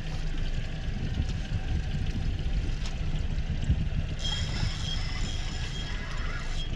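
Low, buffeting rumble of wind and water around a small open fishing boat at sea, with a thin high whine from about four seconds in until near the end.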